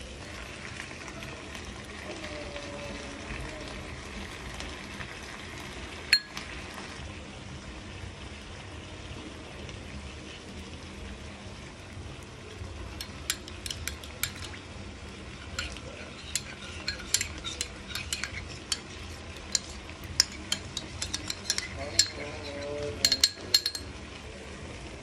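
Chicken and vegetables sizzling in a frying pan as they are turned with a spatula. Then a metal spoon stirs a sauce mixture in a glass bowl, clinking rapidly against the glass through the second half.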